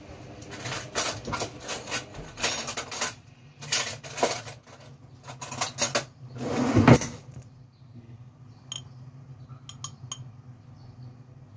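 A glass jar of garlic chili being handled, with rattling and scraping for the first several seconds, loudest about seven seconds in. Then a metal spoon clinks against the glass a few times as chili is scooped out.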